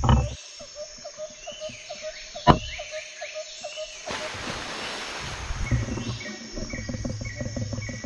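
Metal hand tools (pliers and a screwdriver) being handled and set down on a wooden workbench: a sharp click at the start, a single knock about two and a half seconds in, and small handling clicks between. Faint chirping and light ticking run underneath.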